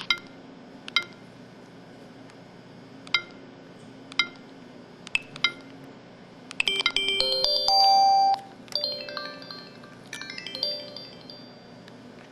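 Samsung SCH-E200 mobile phone playing its built-in sound effects through its speaker: a few short single beeps a second or more apart, then from about halfway a few seconds of quick stepping chime tones like a short jingle.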